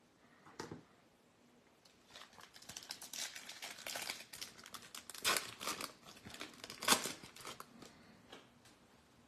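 Foil trading-card pack wrapper being torn open and crinkled: a dense crackling that starts about two seconds in and lasts several seconds, with a couple of sharper rips in the second half.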